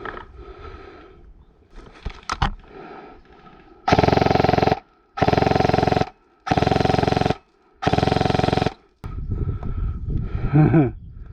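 Four bursts of rapid automatic fire, each just under a second long, starting and stopping abruptly with near silence between them.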